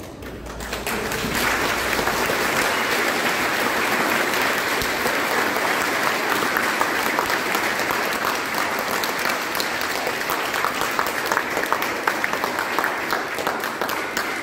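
A large crowd applauding, building up over the first two seconds and then holding steady, with single claps standing out toward the end as it thins.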